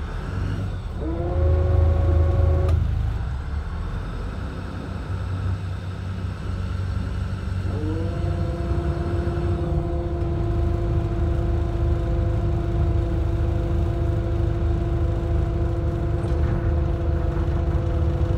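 Boat engine running with a steady low rumble as the boat moves slowly. A pitched motor whine rises and then holds, briefly about a second in and again through the second half.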